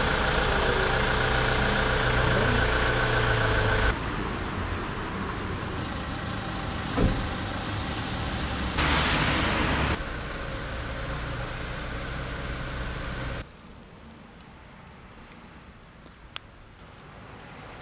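Street sound with a motor vehicle engine running, steady and loudest in the first four seconds, changing abruptly at each cut. A brief louder hiss comes about nine seconds in, and the last few seconds are much quieter.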